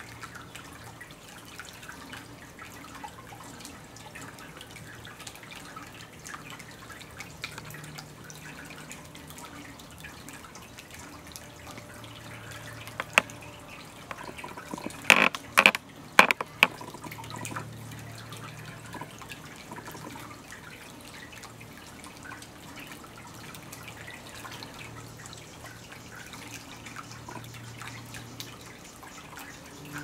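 Small tabletop water fountain bubbling and trickling steadily as its water runs over a stone into the basin. About halfway through comes a short cluster of sharp clicks, the loudest sounds here.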